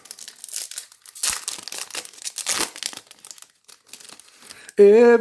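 Crinkling and tearing of a foil trading-card pack wrapper for about three seconds, followed by fainter clicks of handling. Near the end a man starts singing.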